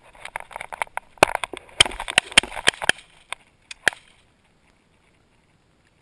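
Footsteps crunching through dry grass and brush: a quick, irregular run of crackles that stops about four seconds in.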